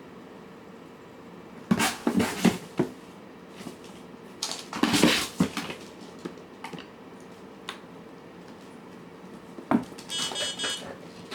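Cat food dishes clattering in several short bursts as the cats eat, about two and five seconds in and again near the end, followed by a brief high-pitched tone.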